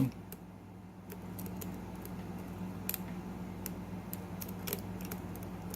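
Light, irregular metallic clicks of a lock pick and tension wrench working in a pin-tumbler lock, as the picker resets after the set pins have all dropped. A steady low hum runs underneath.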